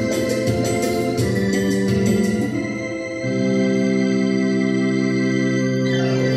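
Electronic keyboard played with an organ voice: chords moving under a melody, settling into a long held chord about three seconds in.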